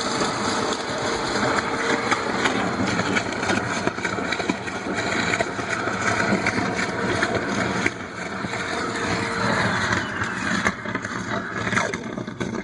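Wet/dry vacuum running steadily as it sucks standing water up. A steady tone in its sound drops out about nine and a half seconds in.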